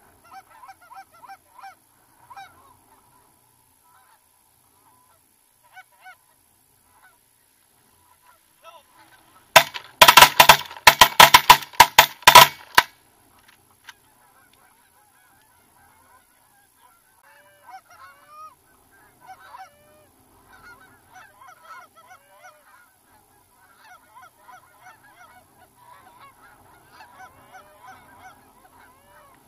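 Canada geese honking and clucking. A loud, rapid flurry of close calling runs for about three seconds starting near ten seconds in, and fainter calls from a flock coming in fill the second half.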